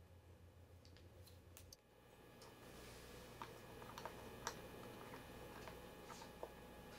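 Faint, irregular small clicks of a number 00 Phillips screwdriver working the short screws out of a 13-inch MacBook Pro's bottom case.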